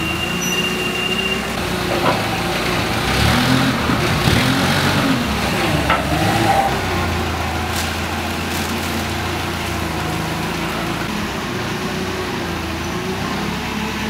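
Nissan forklift's engine running as it carries and manoeuvres a rubber track unit, its speed rising and falling several times in the first half, then steadier, with a few light clanks.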